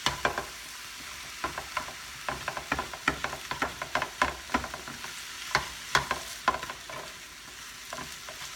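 Ground beef and onions sizzling in a frying pan over low heat, with a steady hiss. A utensil stirring and folding the mixture makes frequent sharp scrapes and taps against the pan.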